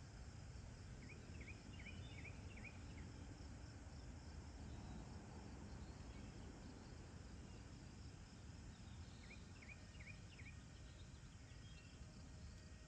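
Faint outdoor background with a steady low rumble, broken by two short runs of quick, high chirps from a small animal: about six in the first few seconds and four more a little past the middle.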